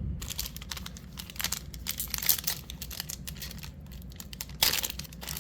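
A plastic trading-card pack wrapper being crinkled and torn open, with a run of small crackles and a louder, longer rip near the end.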